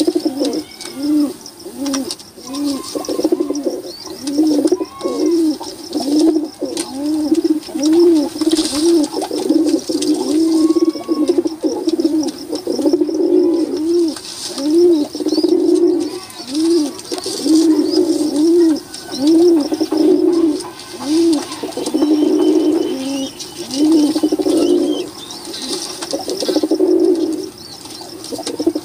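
Flock of domestic pigeons cooing almost without pause. Many short rising-and-falling coos come about two a second and overlap one another.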